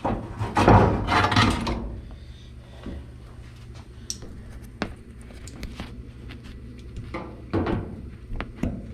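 Hand handling noise: a loud stretch of rubbing and rummaging early on, then scattered clicks and knocks and a second short scrape near the end, as things are picked up and moved about.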